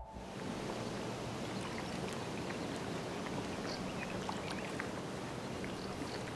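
Lake water lapping and splashing gently around a swimmer: a steady wash with small scattered splashes.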